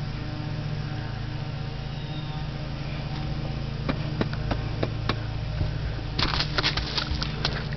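Handling noise on a handheld video camera: a steady low hum with scattered clicks and rubbing, the clicks coming thick and fast for about a second and a half some six seconds in, as the camera is swung round.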